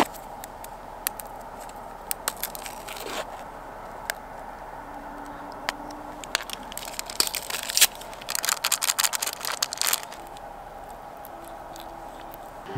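Clear plastic bag crinkling and rustling in short bursts as it is handled, with scattered small clicks and taps in between.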